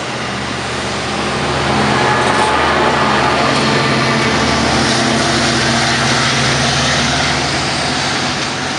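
Diesel commuter train of bi-level coaches passing close by. The diesel locomotive's engine hum swells as it goes past about halfway through, over steady wheel and rail noise.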